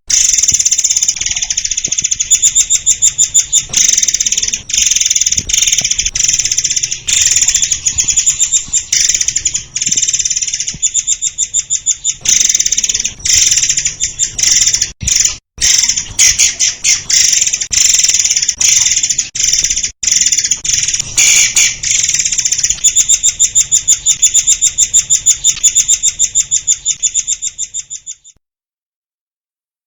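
A murai air singing a dense, fast run of high-pitched chattering trills with almost no pause, cutting off suddenly near the end.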